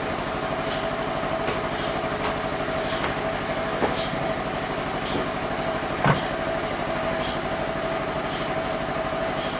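Bandsaw sawmill running with a steady hum and a short hiss that comes back about once a second. A sharp knock stands out about six seconds in.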